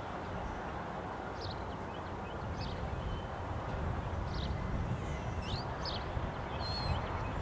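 Small birds chirping, a scattered run of short high calls, over a steady low rumble from the distant approaching diesel freight locomotives.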